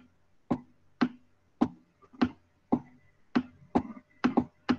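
A run of sharp computer clicks, about two a second and coming a little quicker near the end, as a PDF document is stepped down page by page.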